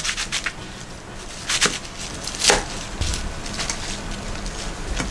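A kitchen knife slicing napa cabbage on a plastic cutting board, with several sharp strikes of the blade against the board in the first half. From about three seconds in, the cut cabbage is handled and pressed down into a frying pan.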